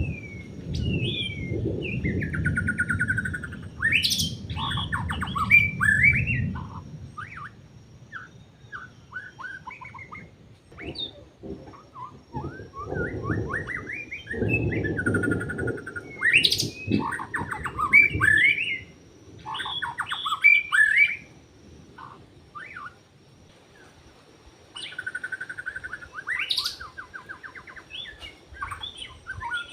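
Wild white-rumped shama singing: a varied song of clear whistles, quick rising and falling sweeps and fast trills, in phrases with short pauses between them. A low rumble runs underneath during the first six seconds and again about halfway through.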